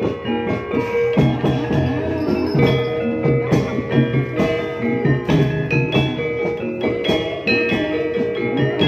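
Gamelan music accompanying an ebeg horse dance. Quick tuned mallet-struck notes at many pitches play over repeated low drum strokes.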